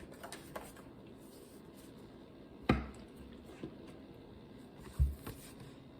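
Two knocks over faint room tone, a little over two seconds apart: the first sharp, the second a dull low thump.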